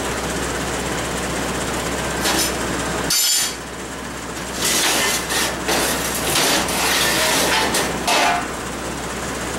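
Steel tubing and channel being scraped and clanked against a steel welding-table top: two short clanks, then a longer stretch of scraping and knocking from about halfway through. A steady machine hum runs underneath.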